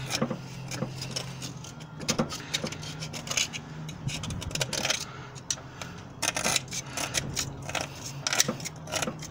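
A small hand tool scraping carbon deposits out of the combustion chambers of a Morris Minor's cast-iron cylinder head: irregular short scratches and ticks of metal on metal.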